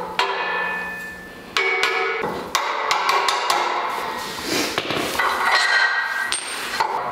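Hammer strikes on the steel four-link suspension parts, a few separate blows in the first seconds, each leaving a metallic ring. A busier run of metal clanking and rattling follows as the link bars are worked into their chassis brackets.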